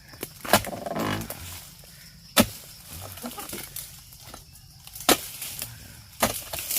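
Oil palm harvesting tool chopping into the palm: four sharp strikes a couple of seconds apart, as fronds and fruit-bunch stalks are cut.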